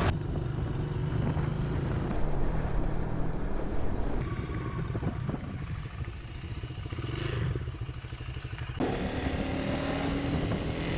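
Motorcycle engine running while riding. The sound changes abruptly about two, four and nine seconds in, and after the last change the engine note rises slowly.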